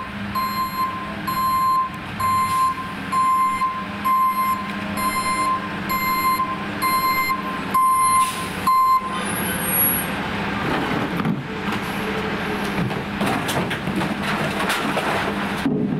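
Heil rear-loader recycling truck on a Freightliner chassis backing up, its reverse alarm beeping steadily a little faster than once a second over the diesel engine running. The beeping stops about nine seconds in. Clattering follows as recycling is tipped from bins into the rear hopper.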